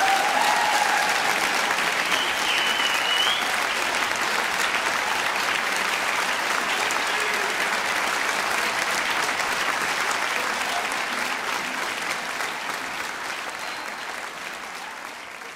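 Concert audience applauding after an unaccompanied song, a dense, steady clapping that fades away over the last few seconds.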